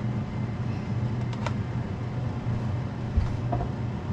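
Steady low electrical hum from a running kitchen appliance, with a faint click about a second and a half in and a soft thump about three seconds in.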